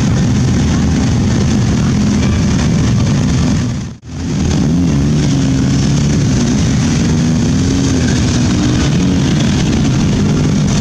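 A procession of many motorcycles riding past at walking pace, their engines running together in a dense low rumble. The sound drops out for a moment about four seconds in, then the engines carry on.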